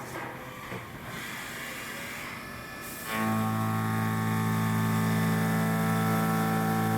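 Milling cutter on a Haas vertical CNC mill cutting metal. The sound is a mixed machine noise for about three seconds, then the cutter bites in and a loud, steady low hum with many overtones starts abruptly and holds.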